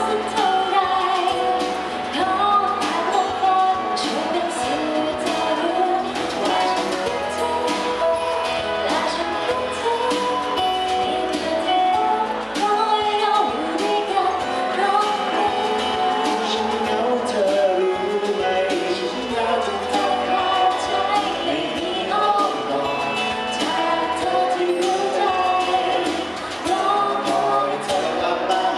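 Live pop song: singing into microphones over acoustic guitar accompaniment, heard through a sound system in a large hall. A man's voice sings into a handheld microphone near the end.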